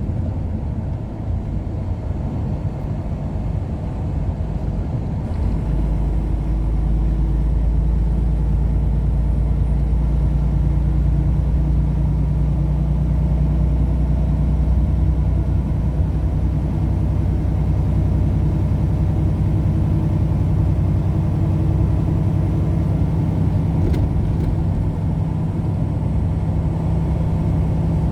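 Engine and road noise of a moving vehicle heard from inside the cab: a steady low drone that grows louder about five seconds in and then holds at cruising speed.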